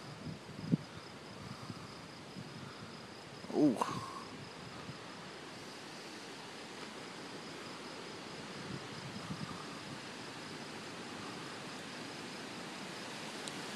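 Crickets chirping steadily in a fast, even pulse over a faint hiss. A short click comes under a second in, and a brief wavering, sliding sound comes about four seconds in.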